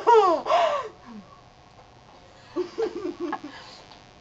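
Young women laughing: a loud, high laugh sliding down in pitch in the first second, then a few short, softer chuckles a little past the middle.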